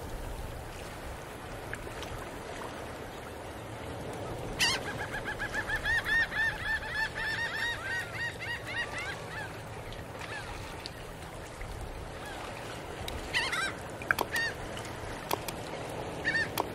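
Birds calling: a quick run of repeated honking calls starts about a third of the way in and lasts a few seconds, followed by a few scattered calls near the end, over a steady low background noise.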